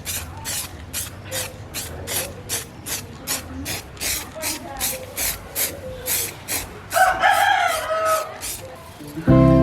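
Rhythmic hand scraping strokes, about three a second, typical of sanding or brushing during restoration work. A rooster crows once about seven seconds in, and music starts just before the end.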